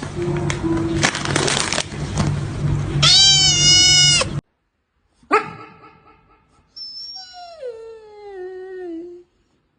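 A cat's loud, drawn-out meow over a background hum and noise, cutting off abruptly; after a short silence and a click, a second long meow that slides down in pitch.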